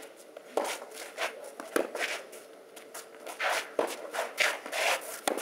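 Tennis rally on a clay court: shoes scuffing and sliding on the clay as the player moves, with a few sharp pops of racket strikes and ball bounces at irregular intervals.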